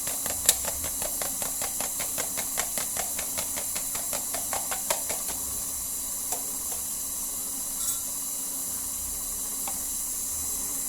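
An egg being beaten by hand in a small container: a quick run of light clicks, about four a second, for roughly five seconds, then a few scattered taps. Under it, the steady hiss of a stand mixer running.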